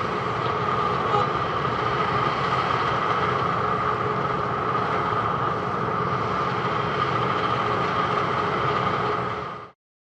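Heavy construction machinery running steadily, most likely a Wirtgen W210i cold milling machine at work, a dense mechanical rumble with a steady whine over it. It cuts off suddenly near the end.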